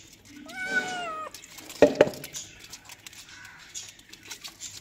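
Kitten meowing: one long meow about half a second in that dips slightly at its end, then a short, sudden, loud sound about two seconds in.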